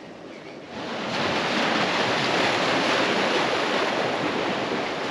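Ocean surf washing and breaking among shoreline rocks, a steady rush of churning water that comes in suddenly about a second in.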